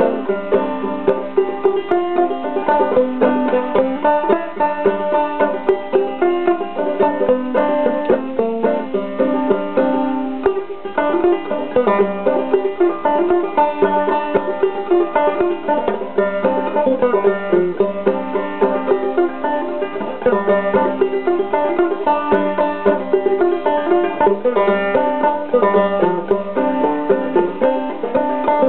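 Five-string banjo played clawhammer style: a steady, unbroken run of plucked notes in a modal tune.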